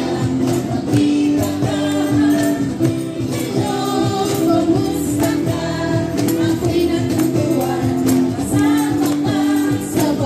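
Live praise music played through PA speakers: a woman sings lead into a microphone with a small group singing along, backed by acoustic guitar and keyboard, with a light percussive beat.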